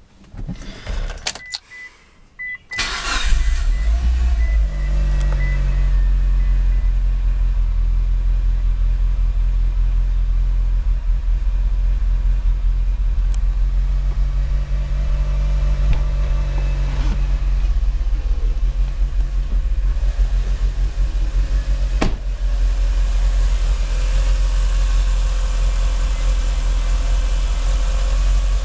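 Mitsubishi Lancer Evolution IX MR's turbocharged 2.0-litre 4G63 inline-four starting about three seconds in and settling into a rough, uneven idle that swells and sags now and then. The rough idle is a fault of unknown cause that new spark plugs have not cured.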